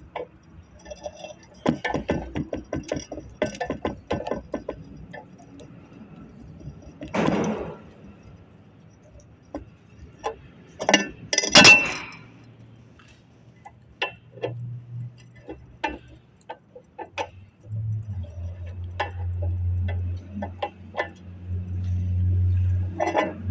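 Metal clicks and clinks of a hand socket wrench turning the cover bolts of a hydraulic orbit motor clamped in a vise, tightened crosswise during reassembly. There is a run of quick clicks in the first few seconds and a sharper metal clink about eleven seconds in. A steady low hum starts about eighteen seconds in.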